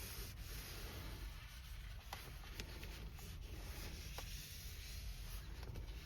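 Faint rubbing of a cloth wiping the truck's interior trim, with a few light clicks.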